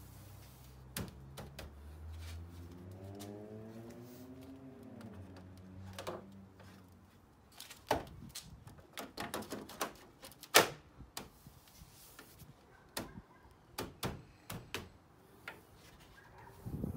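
Hard plastic clicks, snaps and knocks as a BMW X5 E70 kidney grille is handled and pressed into place in the front bumper. The clicks come irregularly, with the sharpest snap about ten and a half seconds in. A low drone falls in pitch during the first few seconds.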